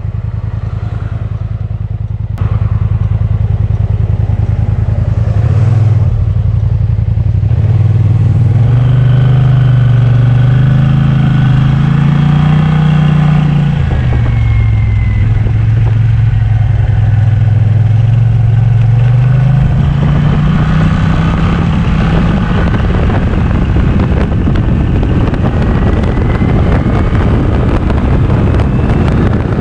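Kymco AK 550 maxi-scooter's parallel-twin engine running under way, with wind and road noise on the bike-mounted microphone. The engine note rises as the scooter speeds up about eight seconds in, drops back around fourteen seconds, and climbs again near twenty seconds.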